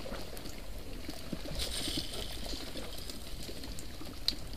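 Water lapping and trickling around a small wooden boat on a river, with a brief hiss about one and a half seconds in and a single click near the end.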